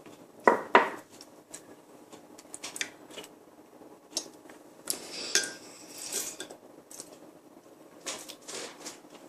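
A metal spoon stirring honey into milk in a glass, clinking against the glass in irregular taps, with two sharper clinks under a second in.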